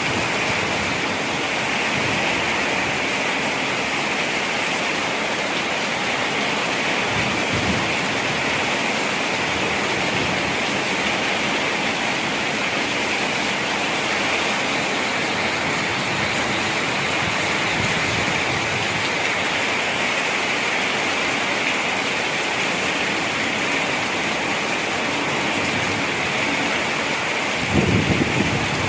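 Heavy rain falling steadily, a dense even hiss. A brief low rumble comes near the end.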